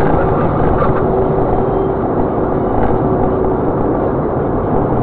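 A car driving: steady engine and road noise with no change in pace.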